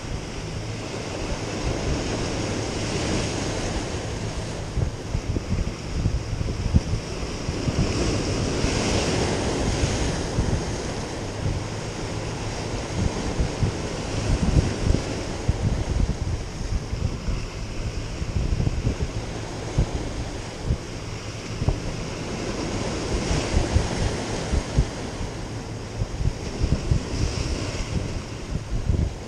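Sea waves breaking and foaming against rocks, surging every several seconds, with wind buffeting the microphone.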